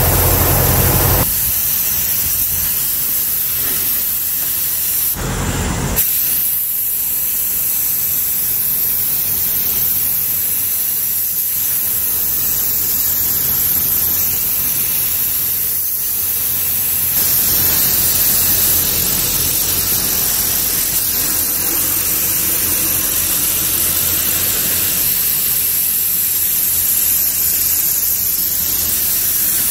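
DeVilbiss spray gun with a 1.4 mm tip hissing steadily as it sprays single-stage paint, its air getting a little louder about seventeen seconds in.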